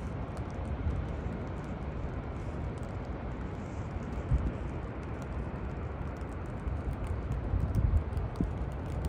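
Steady low rumble of city and construction-site noise, with scattered light ticks throughout. Two dull thumps stand out, about four seconds in and near the end.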